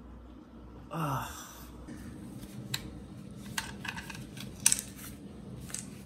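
Ice cube clattering on a tiled floor as it is knocked out from under a fridge: a string of sharp, irregular clicks and knocks, the loudest about three quarters of the way through.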